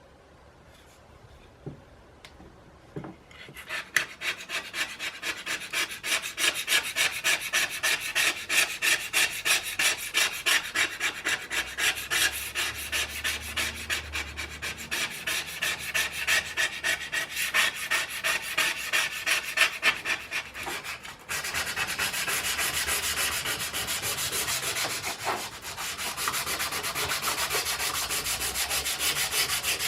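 Hand sanding: sandpaper scrubbed back and forth in quick, regular strokes, starting a few seconds in. About two-thirds of the way through, the strokes turn faster and steadier.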